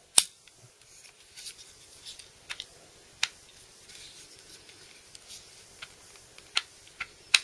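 Sharp metallic clicks from an ISSC M-22 .22 pistol as its slide is pulled back and worked onto the frame during reassembly. The sharpest click comes right at the start, a handful more are scattered through, and there is light handling noise between them.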